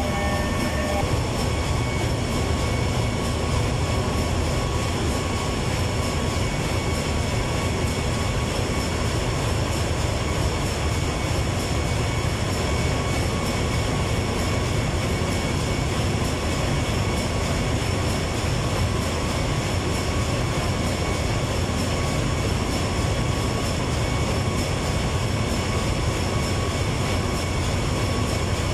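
Steady, loud machinery drone with a heavy low hum and a few steady high whines, the running background noise of a ship's engine room.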